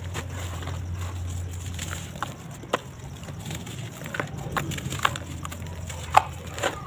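Dry sand-cement lumps being crushed and crumbled by hand in a plastic tub: scattered sharp crunches and crackles, few at first and more often in the second half, the loudest about six seconds in, over a low steady hum.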